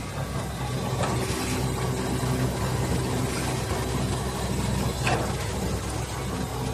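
Industrial automatic curtain hemming machine running steadily, its rollers feeding fabric, giving a constant low machine hum. A faint brief higher sound comes about a second in and another about five seconds in.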